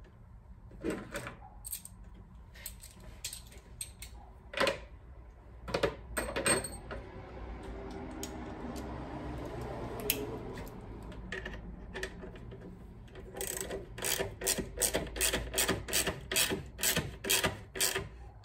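Hands working a plastic air box and air filter into place in an engine bay: scattered knocks and plastic scraping, then a long rubbing scrape. From about 13 seconds in comes a run of quick, regular clicks, two or three a second, as the filter's screws are started into the plastic.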